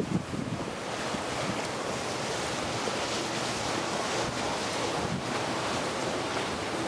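Wind buffeting the microphone over the wash of sea waves against a rock breakwater: a steady rushing noise, with a couple of stronger gusts at the start.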